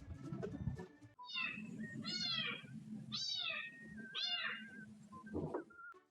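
A cat meowing: four rising-and-falling meows in a row, starting about a second in.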